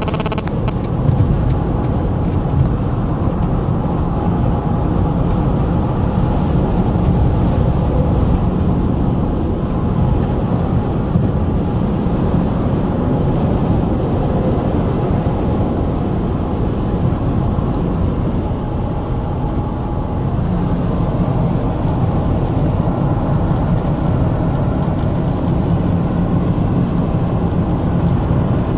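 Steady low rumble of tyre, engine and wind noise inside a car cruising at freeway speed.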